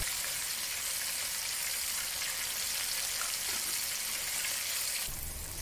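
Cornstarch-coated pork ribs deep-frying in vegetable oil at about 200 °C, a steady sizzling hiss of vigorously bubbling oil. This is the second, high-temperature fry that dries and crisps the ribs' coating.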